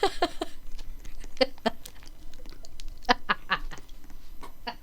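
Wheezing laughter: a person laughing so hard that it comes out as runs of short, breathy gasps rather than voiced laughs, in irregular clusters.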